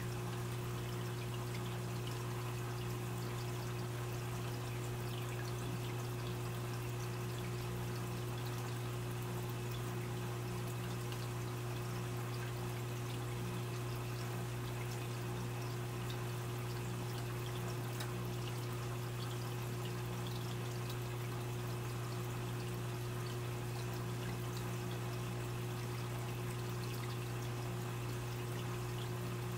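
Aquarium water trickling and splashing steadily, with a steady low hum underneath.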